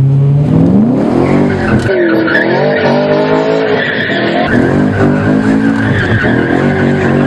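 BMW E90 M3's 4.0-litre V8 through a Gintani race exhaust, revving up sharply about half a second in and then holding high, wavering revs, with tyres squealing as the car drifts.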